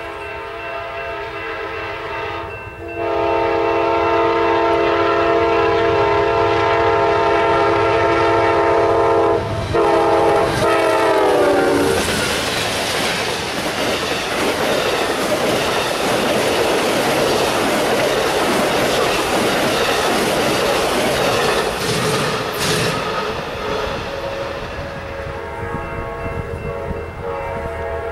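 Amtrak passenger train sounding a long chord horn on approach, louder about three seconds in, with the horn's pitch dropping as the locomotive goes by. Then the double-deck Superliner cars rush past with wheels clacking over the rail joints, fading away. Near the end, a train horn sounds again.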